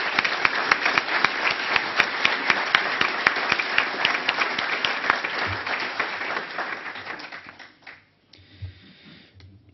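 Audience applause, a dense patter of many hands clapping that dies away about seven or eight seconds in.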